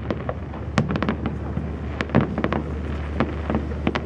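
Fireworks display: an irregular rapid series of sharp bangs and crackles from bursting shells, over a steady low hum.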